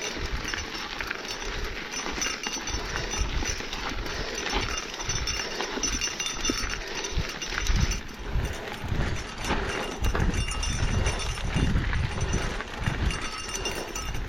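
A mountain-bike rider breathing hard while pedalling up a steep climb, with tyre and trail noise underneath.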